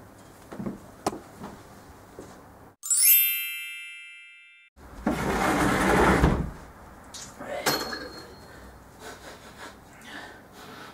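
A bright, many-toned chime sound effect rings out about three seconds in and dies away over about two seconds. It is followed by a loud burst of rushing noise. Before and after, soft rustling and light clicks come from clothes and coat hangers being handled at a wardrobe.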